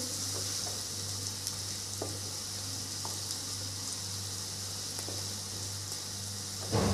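Chopped onions and green chillies sizzling in hot oil in a nonstick kadhai, stirred with a wooden spatula, with a few light taps and a louder scrape near the end. A steady low hum runs underneath.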